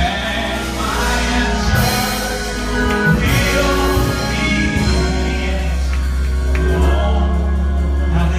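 Gospel music: a choir singing over a band with a strong, sustained bass line.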